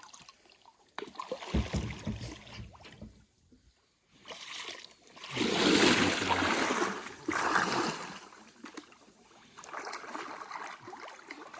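Water splashing at the side of a small boat, loudest in two bursts about five and seven seconds in, with a knock and a few low thuds earlier.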